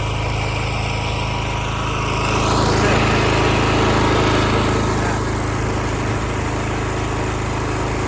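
Small petrol engine of a pressure washer running steadily, growing louder for a couple of seconds in the middle.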